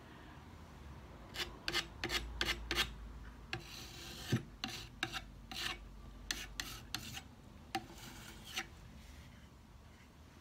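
Metal putty knife scraping and smearing paint across a painted wooden drawer front, a dozen or so short, irregular scraping strokes that die away near the end.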